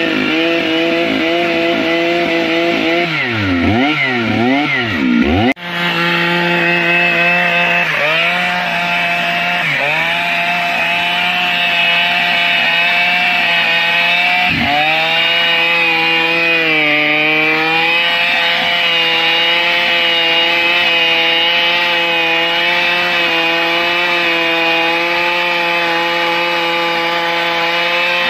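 Stihl MS 881 chainsaw, a large single-cylinder two-stroke saw, cutting mahogany at full throttle. Early on the engine is revved up and down several times; after that it runs at high, steady revs, its pitch dipping briefly a few times as the chain bogs under load in the cut.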